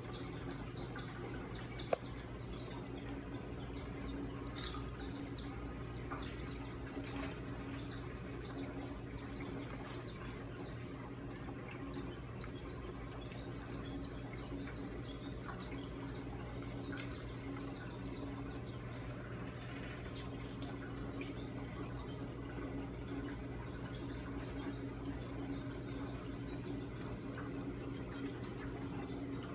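Aquarium pump running with a steady hum, water bubbling and trickling in the tank. Short high chirps come now and then, clustered in the first ten seconds and again near the end.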